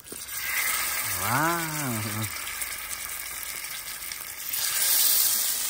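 Masala-coated river fish frying in hot oil: a steady sizzle that starts abruptly and grows louder near the end.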